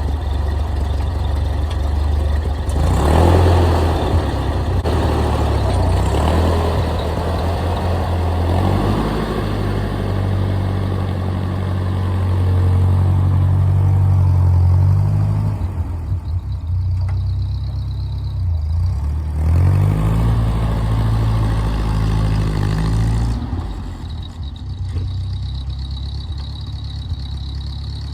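Ford 2N tractor's four-cylinder flathead engine running under way, warmed up, its speed rising and falling several times as it is driven. There is a short louder rattle about three seconds in.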